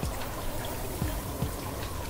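Steady running water, trickling and pouring like a small stream, with a low gurgle about every second. A faint held tone sits underneath.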